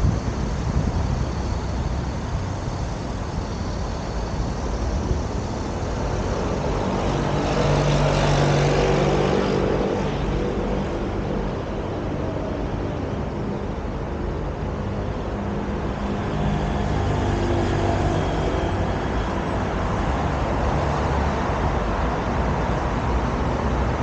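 Road traffic on a wide multi-lane city road: a continuous rumble of passing cars. One vehicle passes close and loud, its engine hum rising and falling about eight seconds in, and another passes more softly near seventeen seconds.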